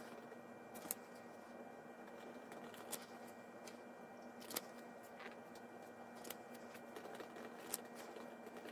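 Quiet room tone with a faint steady hum, broken by a handful of soft, short clicks from trading cards being handled and swapped in the hand.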